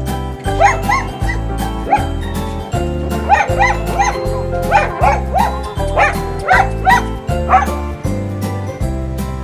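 Injured, paralyzed dog with a deep spinal wound yelping repeatedly in short, sharp cries, a dozen or so of them, over background music with a steady beat.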